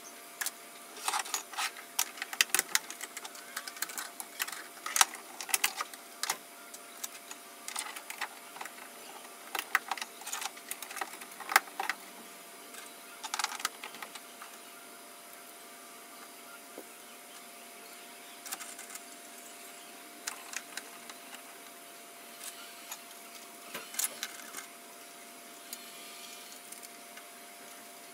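Rigid 3D-printed plastic parts clicking and knocking against each other and the table as they are handled and fitted together. The clicks come thick and fast in the first half and grow sparse later, over a steady faint hum.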